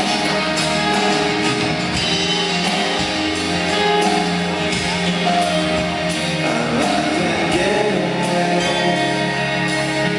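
A rock band playing live, a steady guitar-led passage with sustained chords and low bass notes.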